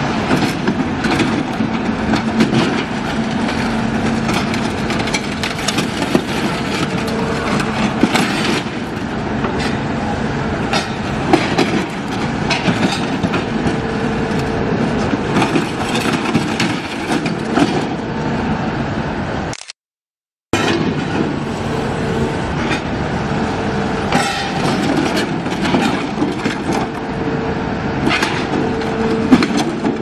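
Heavy machinery at work: a steady engine drone under frequent metallic clanks and knocks. The sound is broken by a sudden silence of under a second about two-thirds of the way through, then carries on.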